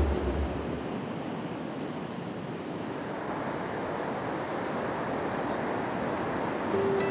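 Ocean surf washing onto a beach, a steady rush of waves. A music bed ends in the first second and a plucked tune starts near the end.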